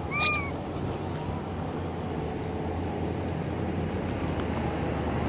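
A macaque gives one short, arching call just after the start. A steady low hum, like an engine running, carries on under it throughout.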